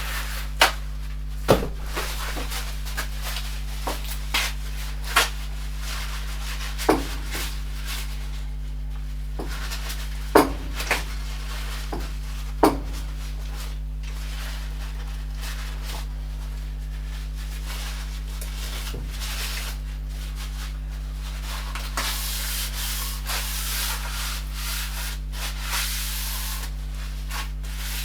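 Metal-workshop handling sounds over a steady low hum: scattered sharp knocks and clicks of tools and parts, with rubbing. A hiss comes in near the end.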